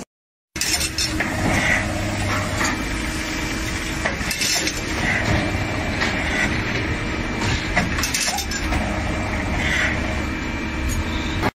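Automatic wire-bending machine running, drawing steel wire through its row of straightening rollers and bending it into rings. A steady mechanical clatter and hum with scattered clinks, starting about half a second in.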